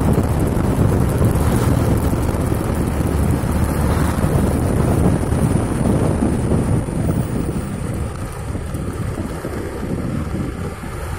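Wind buffeting the microphone on a moving motorcycle, a dense low rumble that eases slightly in the second half.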